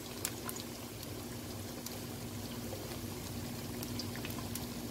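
Marinated fish pieces frying in hot oil over a medium flame: a steady sizzle with scattered small pops and crackles, over a steady low hum.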